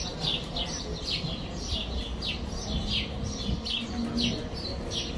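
A small bird chirping over and over, short high falling chirps about three a second, over a low background rumble.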